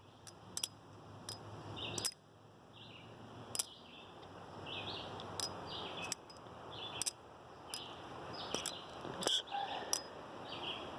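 Balisong (butterfly knife) being flipped and tossed, its handles and blade clacking together in sharp metal clicks at irregular intervals, a dozen or so, with birds chirping faintly in the background.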